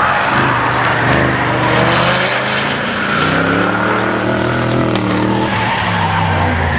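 Race cars driven hard, their engines revving up and down, with tyres squealing and skidding through the corners.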